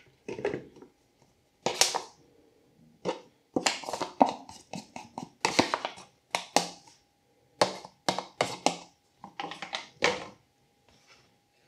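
A metal utensil scraping quark out of its packet and knocking against the packet and the rim of a glass mixing bowl: a long string of irregular short scrapes and knocks, some with a brief ring.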